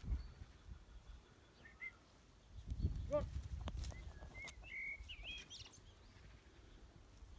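A young chicken gives a short squawk rising in pitch about three seconds in, followed by several short high bird chirps, over a low rumble.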